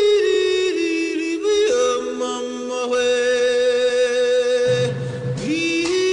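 Music: voices singing in harmony, with long held notes that shift pitch every second or two.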